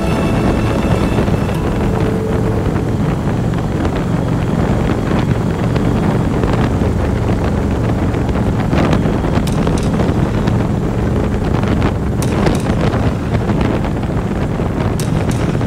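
Wind rushing and buffeting over the microphone at highway speed, over the low steady drone of a Harley-Davidson Street Glide's V-twin engine and road noise, with a few brief crackles from the wind.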